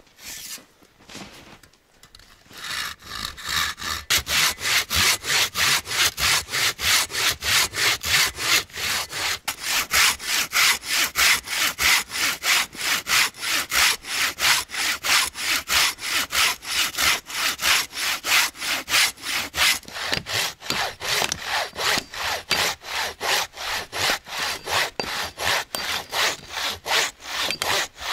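A hand saw cutting through a log in quick, even back-and-forth strokes, about three a second, after a couple of scattered knocks on the wood in the first two seconds.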